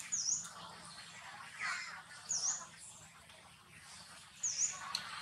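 A bird repeating a short, high chirp that dips and rises in pitch, three times about two seconds apart, with softer, lower chirps between them and a sharp click near the end.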